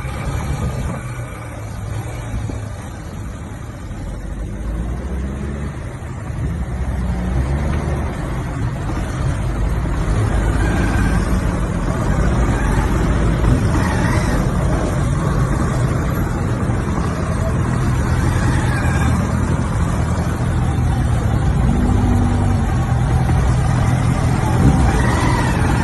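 Road traffic heard from a motorcycle: engines running in slow, close traffic as a steady low rumble that grows louder a few seconds in.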